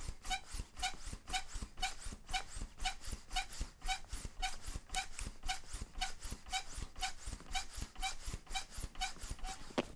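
Pogo stick bouncing on pavement, about two bounces a second, each a thud with a short metallic ping from the coil spring. The bouncing stops just before the end.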